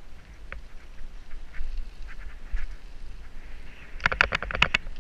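Riding noise from a small bike: a steady low rumble of wind and rolling, with scattered short squeaks and a quick run of about eight loud, quack-like squeaks near the end.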